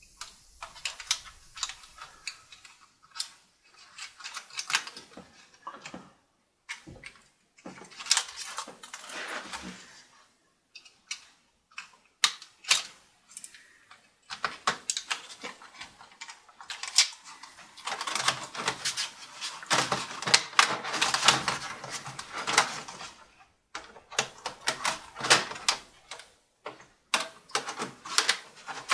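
Uneven runs of plastic clicking and rattling as a ThinkPad T530 keyboard is handled, fitted into the laptop and pressed down into place.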